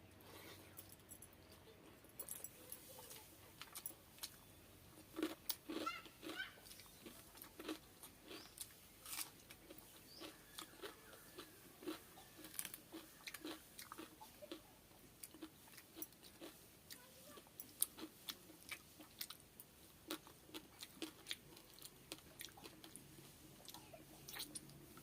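A person eating close to the microphone: chewing and crunching food, with many short, irregular crunches.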